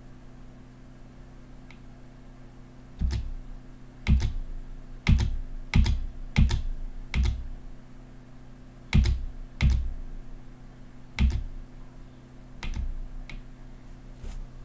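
Computer keyboard key struck about a dozen times at uneven intervals, each press a sharp click with a dull thump, paging through long terminal output at a '--More--' prompt.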